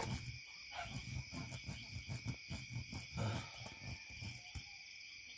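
Steady high chirring of night insects, with irregular soft low thumps and rustles as a kitten plays on a woven plastic mat.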